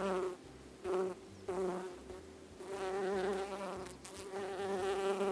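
Bee buzzing in flight, a wavering buzz that comes in three short bursts and then holds steady from about halfway through.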